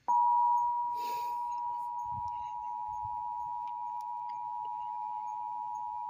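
Emergency Alert System two-tone attention signal (853 and 960 Hz sounded together): a steady, harsh dual tone that starts abruptly and holds without a break. It heralds an emergency alert broadcast, here a flash flood warning. It comes through a TV speaker.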